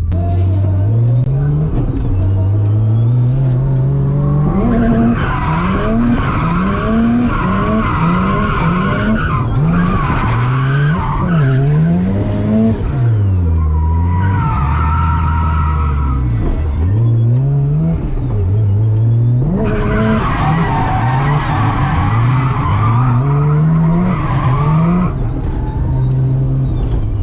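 Mazda FC RX-7's turbocharged 13B rotary engine revving up and dropping back over and over on a drift run, with the tyres squealing in three long stretches.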